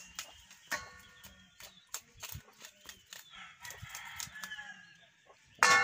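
A knife scraping scales off a barracuda, a run of short clicks, with chickens clucking around it. Near the end a rooster starts a loud crow.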